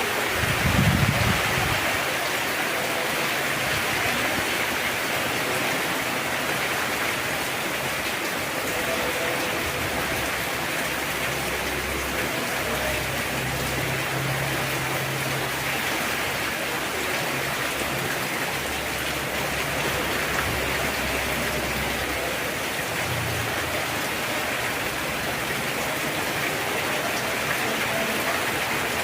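Heavy rain falling steadily, an even hiss of rain on surfaces. A brief low rumble sounds in the first second or so.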